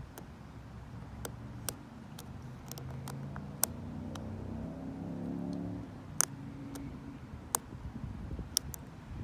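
Lock pick and tension tool clicking and scraping in a Lockwood 570 oval mortise cylinder: about a dozen sharp, irregular clicks over a low rumble from the covered microphone. A low hum swells through the middle and fades.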